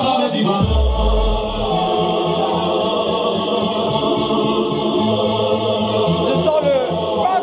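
Loud party music over a sound system with sustained, choir-like vocals, cutting in abruptly at the start, with a deep bass hit about a second in.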